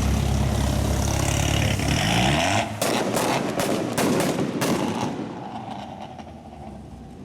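A tuned car's engine running loud, its revs dropping, then the exhaust letting off a rapid string of about ten pops and bangs over some two seconds (overrun backfire) before the car fades away.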